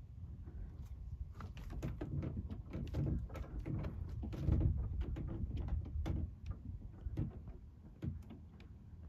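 A quick, irregular run of knocks and clatter over a low rumble, thickest in the middle seconds and thinning near the end. These are plausibly a small boat's rudder and hull being bumped as a manatee noses at the rudder.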